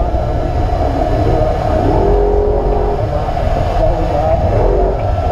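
Trophy truck's engine running with a steady low rumble, with indistinct voices over it.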